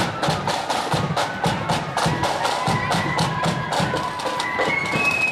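Marching band playing on parade: side drums beating a fast, steady rhythm, with a high held melody line over them.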